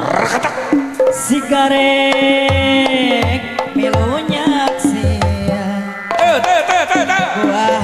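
Live Sundanese jaipongan music from a gamelan ensemble: deep kendang hand-drum strokes under a wavering, sliding melody line.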